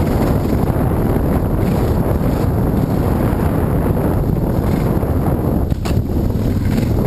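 Dirt bike running along a single-track trail, heard through heavy wind buffeting on a helmet-mounted camera's microphone, with one sharp knock near the end.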